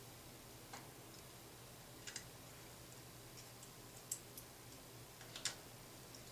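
Faint, scattered light clicks of small metal socket head screws and a finder bracket being handled and threaded by hand into a telescope's clamshell mount, the loudest near the end.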